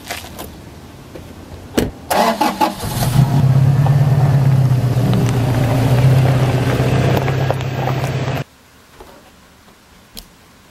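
A motor starts up about two seconds in and runs with a loud, steady low hum for about five seconds, then cuts off abruptly.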